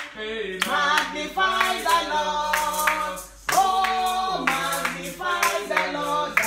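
A man singing a worship chorus in held, changing notes, with hand claps along with it.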